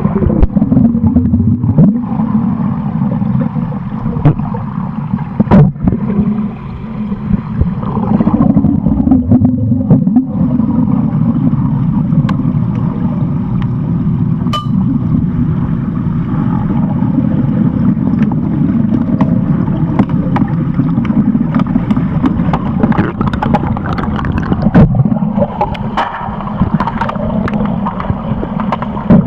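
Muffled water noise heard through a submerged camera: a steady low rumble of water moving around the camera, with scattered sharp clicks and knocks.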